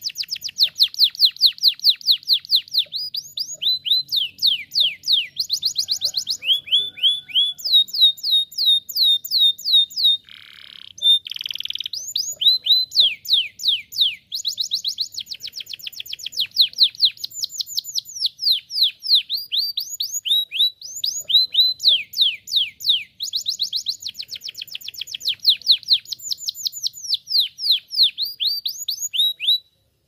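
Domestic canary singing a long, loud song of rapid trills, each a fast run of downward-sweeping notes, changing from one roll to the next with only brief pauses. The song cuts off abruptly near the end.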